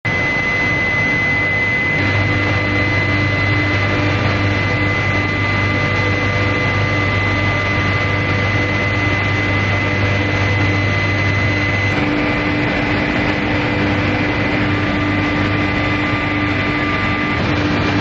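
Continuous induction heat-treatment furnace line running: a steady machinery drone with a low hum and a thin, steady high whine over it. The mix of tones shifts slightly about twelve seconds in.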